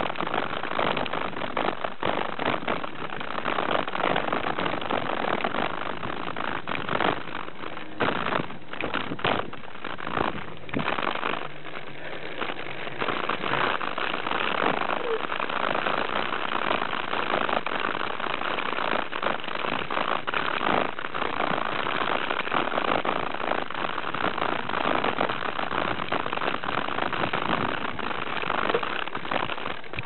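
Mountain bike being ridden along a sandy trail: a steady rushing noise from the tyres and the ride, broken by frequent short rattles and knocks as the bike goes over bumps.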